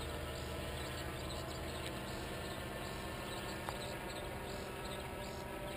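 Faint, steady drone of a distant paramotor's engine as the powered paraglider flies overhead.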